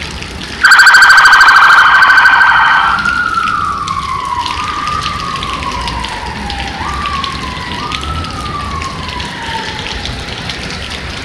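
Police car's electronic siren: a loud buzzing horn blast for about two seconds, then a wail that slides down, jumps back up three times and dies away. The hiss of rain and wet tyres runs underneath.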